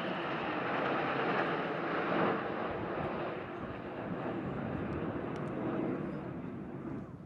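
PZL TS-11 Iskra jet trainers flying past with a steady jet rush. The rush is loudest a second or two in, then slowly fades.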